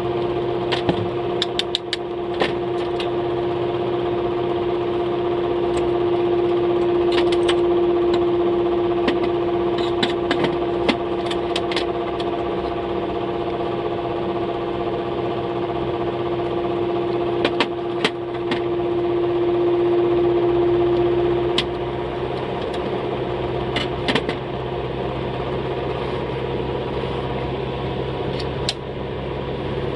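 Steady hum of a small motor or fan, with a strong single tone that cuts out about two-thirds of the way through, and scattered light clicks and taps.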